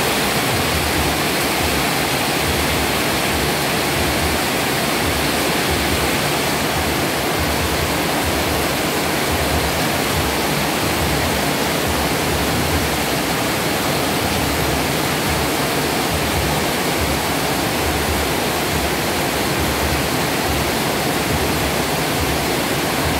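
Heavy rain pouring down, a loud, steady hiss of water.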